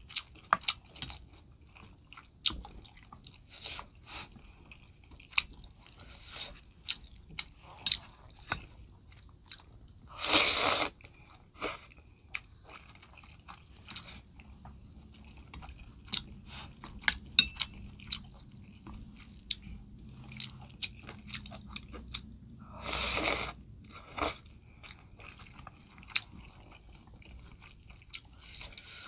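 Close-miked wet chewing of spicy noodle soup (fire champon), with many small mouth clicks and smacks. Two louder, longer slurps come about ten seconds in and again past twenty seconds.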